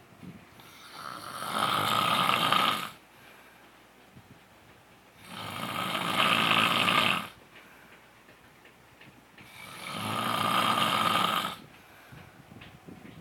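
A man snoring heavily in his sleep: three loud snores, each about two seconds long, building up and then cutting off, about every four seconds, with quieter breathing between them.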